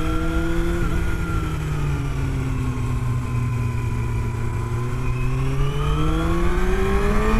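Yamaha sportbike engine under way, its pitch slowly falling for about five seconds as the rider rolls off the throttle, then rising again near the end as he accelerates, with wind rushing past the tank-mounted camera.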